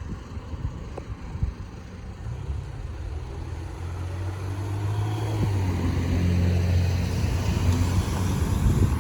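A car approaching and passing on the street, its engine and tyre hum rising gradually over several seconds and strongest in the second half.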